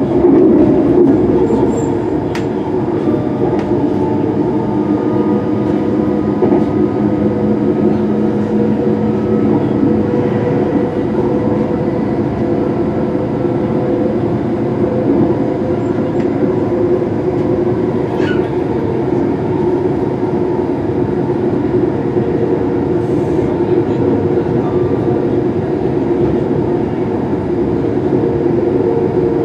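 Inside a Class 385 electric multiple unit running at speed: steady wheel-on-rail rolling noise with a hum running through it and a few faint clicks from the track.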